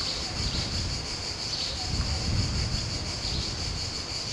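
A steady, high-pitched buzzing chorus of insects, with a low rumble underneath.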